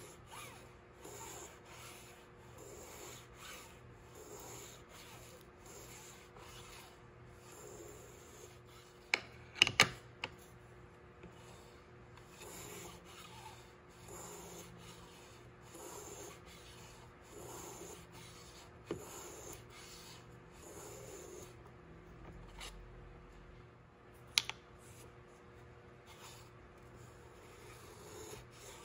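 Veritas miniature shooting plane sliding along a shooting board and shaving a basswood piece, one stroke about every second. A few sharp clicks stand out about a third of the way in, and one more near the end.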